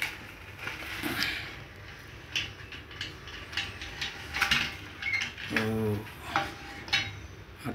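Hard plastic toy auto rickshaw pushed by hand over cardboard and board, its wheels and body scraping and clicking in irregular knocks.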